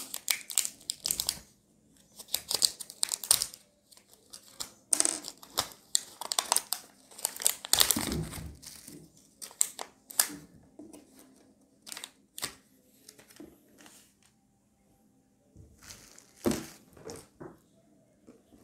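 Clear plastic packaging crinkling and tearing as it is worked open by hand, in irregular bursts of crackling with short pauses.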